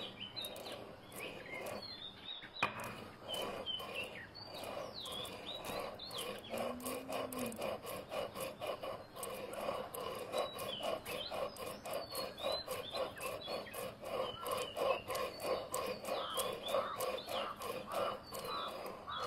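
Stone pestle grinding wet red oxide pigment in a stone mortar: repeated rubbing and scraping strokes as the pigment is worked into oil paint. Birds chirp now and then.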